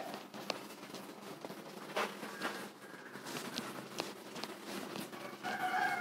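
Blackboard duster wiping chalk off a blackboard in repeated strokes, with scattered clicks and knocks. A held pitched sound with several steady tones sets in near the end.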